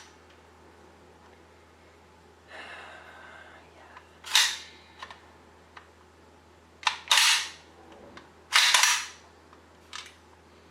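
Bolt of a Northeast Airsoft MP2A1 (UZI) gas blowback airsoft SMG being racked by hand: three sharp metallic clacks about four, seven and eight and a half seconds in, and a softer sliding sound about two and a half seconds in.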